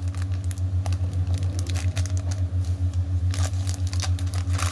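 Clear plastic packaging crinkling and crackling as it is peeled open by hand, over a steady low hum that pulses several times a second.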